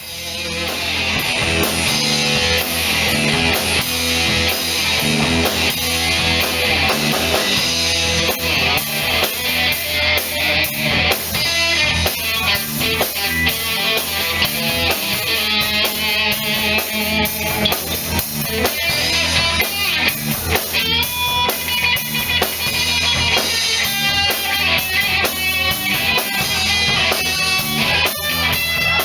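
Live band music: guitars playing with drum kit and bass, no vocals.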